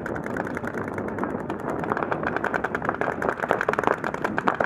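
Paintball markers firing rapidly, many sharp shots a second from several players at once, the firing growing denser about halfway through.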